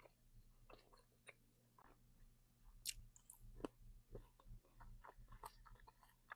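Faint, close-up chewing of a mouthful of Philly cheesesteak and fries: irregular small wet smacks and clicks, with two slightly louder ones about three seconds in.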